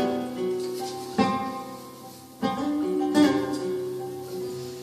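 Acoustic guitar playing a slow flamenco-style ballad: three chords struck about a second apart, each left to ring and fade.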